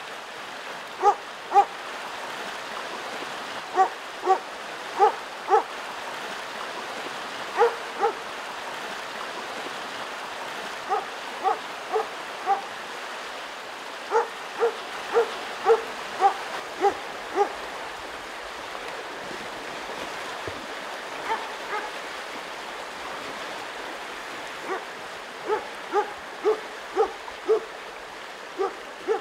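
Grey spitz-type hunting dog barking in groups of short, sharp barks, about two a second, at moose it is holding at bay, over the steady rush of a river.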